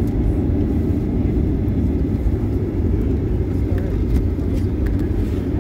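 Cabin noise inside a Boeing 737-900ER taxiing: a steady low rumble from its CFM56 engines at taxi power and the airframe rolling along the taxiway.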